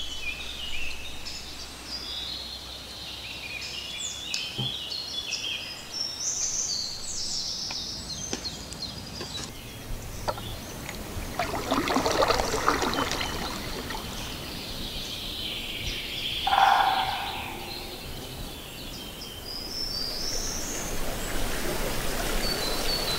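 Outdoor nature ambience of birdsong: many short chirps and trills from small birds, with a louder, lower call about two thirds of the way through.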